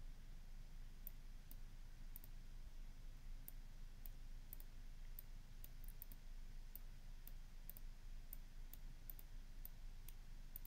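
Faint computer mouse clicks at an irregular pace, roughly two a second, over a low steady hum.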